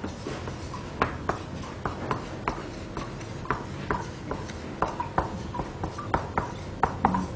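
Marker pen writing on a whiteboard: a string of short, irregular squeaks and taps as the letters are drawn.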